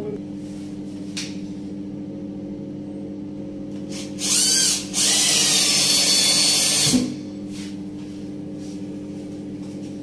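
Cordless drill-driver driving a screw through a lever door handle's rose into a wooden door: a short burst about four seconds in, then a run of about two seconds that stops suddenly.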